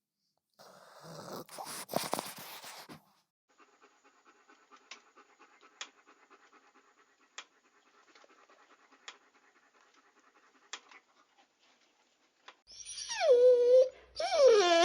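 A dog panting and breathing noisily with a few sharp snorts, then a quiet stretch with faint ticks. Near the end come loud high-pitched dog whines that slide down in pitch, one after another.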